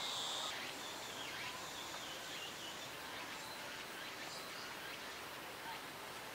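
Outdoor ambience of small birds chirping, with a steady high insect buzz that stops about half a second in.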